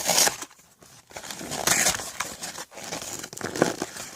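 Glued cardboard box being torn open by hand: a sharp rip at the start, then more irregular ripping and crinkling.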